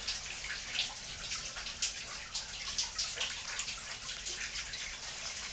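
Water dripping and trickling inside a cave: a steady wash of running water with many small irregular drips and splashes.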